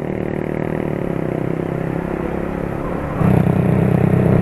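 Motorcycle engine running while riding along, a steady drone. About three seconds in it gets markedly louder and fuller in the low end.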